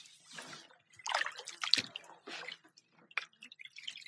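A paddle working the water: irregular small splashes, with water dripping off the blade between strokes.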